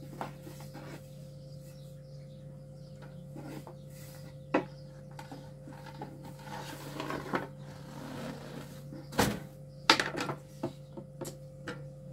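Long thin wooden rolling pins knocking and tapping on wooden boards as flatbread dough is rolled out thin, in scattered sharp knocks, the loudest a few around nine to ten seconds in. A steady low hum runs underneath.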